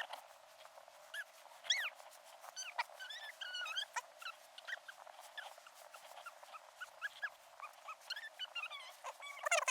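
Springer spaniel whimpering and yipping: many short, high whines that rise and fall, scattered throughout, with a louder burst of them near the end.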